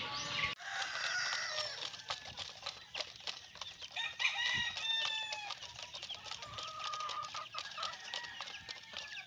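Laying hens clucking in short calls, with quick irregular tapping of their beaks pecking feed from plastic feeders.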